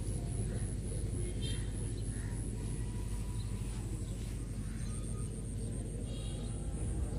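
Outdoor ambience: a steady low rumble with a few faint bird chirps and a faint, high, regular pulsing.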